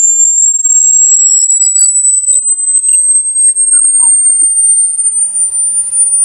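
Electronic rat-repellent tone played as a sound file: a loud, shrill, high-pitched pure tone that slowly rises in pitch. Fainter sweeping tones fade out in the first two seconds, with a few faint short chirps after.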